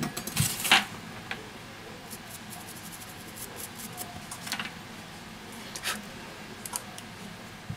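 Fingers and tweezers handling small smartphone parts: a cluster of sharp little clicks about half a second in, then a few scattered ticks and faint rubbing.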